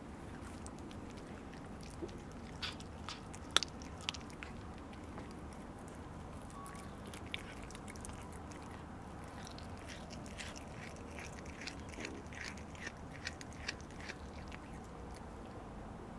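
A cat chewing and biting on a piece of food, with short sharp crunching clicks in two spells: a few seconds in and again through the second half.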